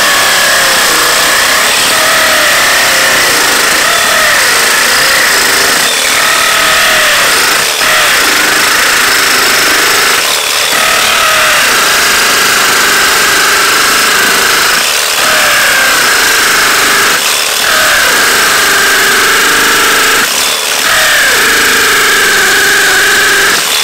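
DeWalt DCD996 brushless hammer drill in hammer mode at top speed, boring a masonry bit into a concrete block: a loud, continuous hammering rattle with brief dips every few seconds.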